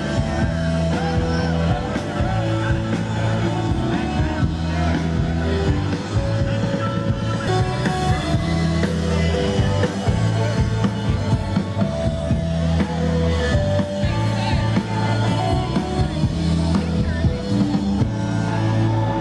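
Rock music with singing, drums and a steady beat, laid over the footage as a soundtrack.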